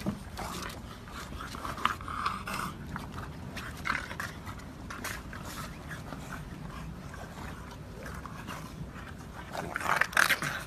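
English bulldogs play-fighting, making short dog noises scattered through, with a louder burst of them near the end as they wrestle.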